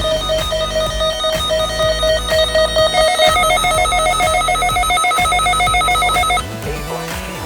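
Electronic music: a rapidly pulsing, trilling tone over a low beat. The tone steps up in pitch about three seconds in and cuts off abruptly near the end.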